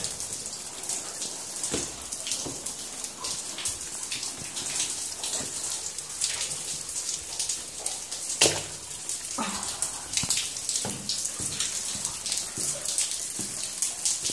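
Footsteps wading through shallow water on a limestone cave floor: a string of irregular splashes, the loudest about eight and a half seconds in.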